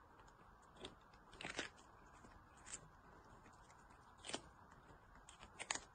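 Kitten biting and crunching into a piece of raw cucumber held out in a hand: a few faint, short crunches spaced out, with a quick pair near the end.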